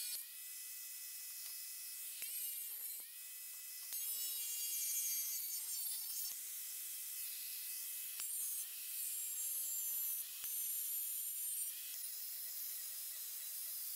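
Angle grinder with a thin cut-off disc cutting stainless steel sheet: a steady high motor whine over the hissing grind of the disc in the metal, broken by a few sudden jumps in the sound.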